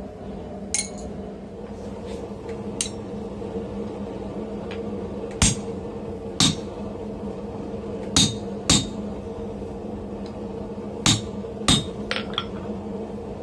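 Hammer blows on a hand-held round top tool, driving a red-hot tong blank into a bottom tool held in a vise. Three pairs of hard, ringing strikes come in the middle and near the end, with a few lighter taps before them. A steady low hum runs underneath.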